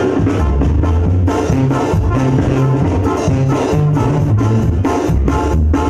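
A Mexican banda plays live: a brass ensemble over a stepping bass line, with drums keeping a steady dance beat.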